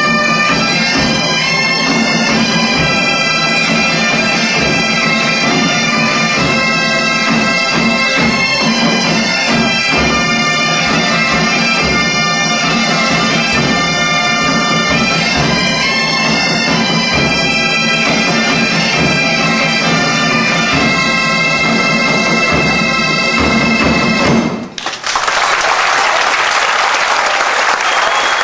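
Galician bagpipe (gaita) music, a melody over a steady drone, that cuts off abruptly about 25 seconds in and gives way to a crowd applauding.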